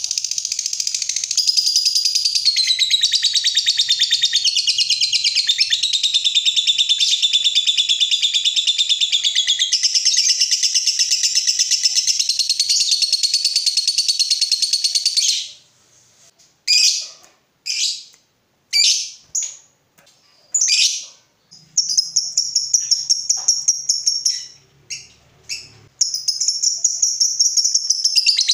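Lovebird giving a long 'ngekek', the rapid, unbroken chattering trill prized in singing lovebirds, held for about fifteen seconds. It then breaks into a few short shrill bursts before running on again in long trills toward the end.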